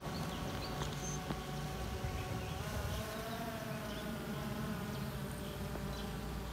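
A steady buzzing hum made of several pitched tones that drift slightly in pitch, over a low rumble.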